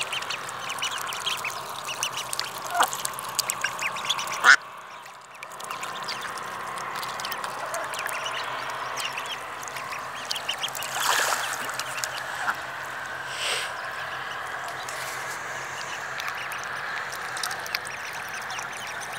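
Three-week-old ducklings peeping constantly as they feed, with a few louder duck calls, the loudest about eleven seconds in. A sharp loud sound about four and a half seconds in is followed by a brief lull.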